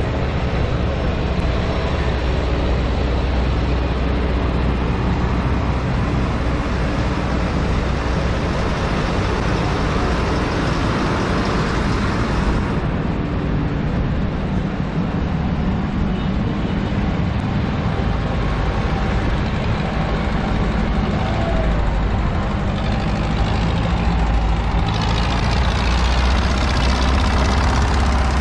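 Diesel tractor engines running steadily as tractors drive past one after another, with tyres hissing on the wet road. Near the end another tractor draws close and the sound swells with a sweeping, phasing quality.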